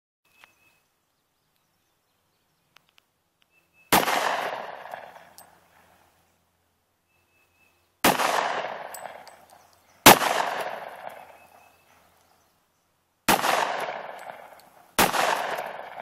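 Five single shots from a Walther .40-calibre pistol, spaced unevenly a few seconds apart. Each is a sharp crack followed by an echo that dies away over about a second and a half.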